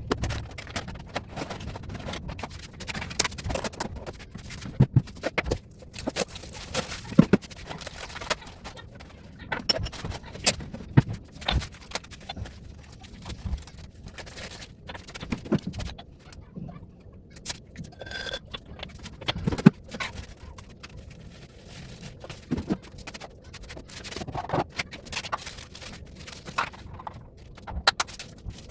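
Irregular knocks, clicks and scrapes of groceries and storage tins being picked up, moved and set down.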